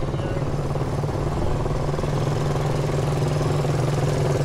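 Several small step-through motorcycles riding past at low speed, their engines running with a steady drone.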